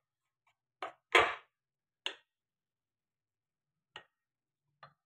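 A wooden spatula knocking and scraping against a metal pan as food is stirred in it: five short strokes, the loudest and longest about a second in.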